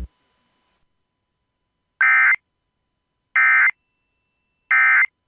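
Emergency Alert System (SAME) end-of-message data bursts: three short, identical digital bursts starting about two seconds in, about a second and a half apart, marking the end of the tornado warning message.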